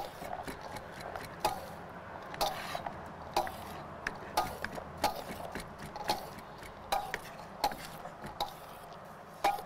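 A metal spoon stirring a chickpea and vegetable salad in a large stainless steel mixing bowl, clinking and scraping against the bowl about every half second to a second, each clink with a short metallic ring.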